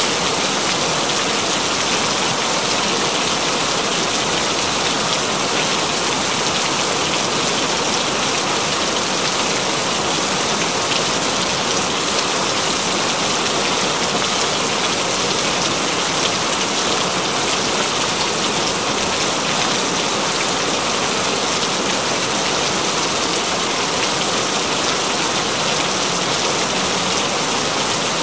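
Continuous rain falling, an even, unbroken hiss that holds steady without letting up.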